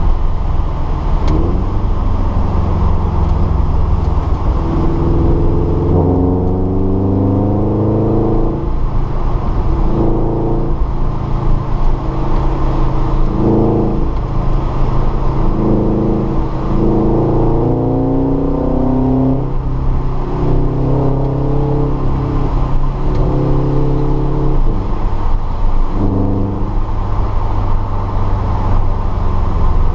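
Subaru BRZ's 2.0-litre flat-four engine heard from inside the cabin under hard track driving, revving up in repeated rising runs that break off and restart lower as the driver shifts and lifts for corners. A steady low road and tyre rumble sits underneath.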